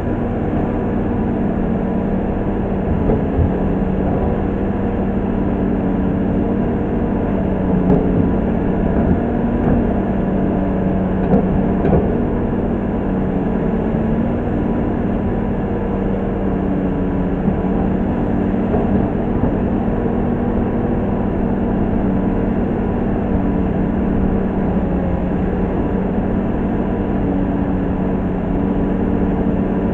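Komatsu PC200-6 excavator's diesel engine running steadily, with a few short knocks and clunks around the middle.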